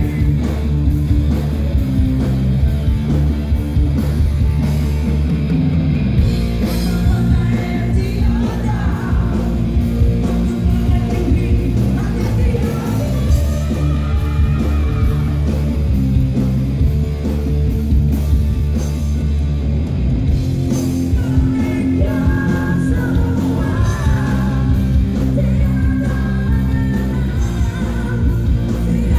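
Live rock band playing loudly, with a singer over electric guitar, bass and drums.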